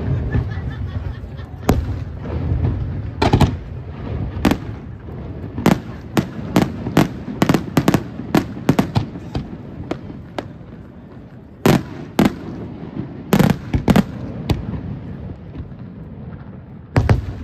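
Professional aerial firework shells bursting overhead, a rapid irregular series of sharp bangs. The bangs come thickest in the middle, ease off briefly, then a few of the loudest reports land in the second half and again near the end.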